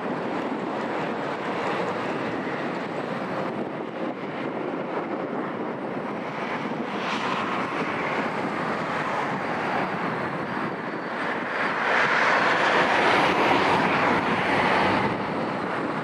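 Departing Boeing 737 MAX 8's CFM LEAP-1B turbofan engines at takeoff power: a steady jet roar that grows louder about twelve seconds in and eases near the end.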